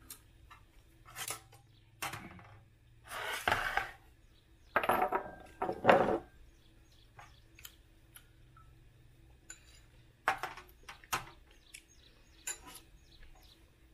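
Chopsticks and spoons clinking and tapping against ceramic rice bowls and dishes during a meal, in scattered irregular clicks.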